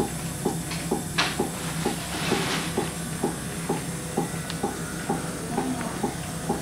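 Fetal heart monitor's Doppler speaker playing a baby's heartbeat: an even whooshing pulse a little over two beats a second, over a steady low hum. A couple of brief hisses come in about one and two and a half seconds in.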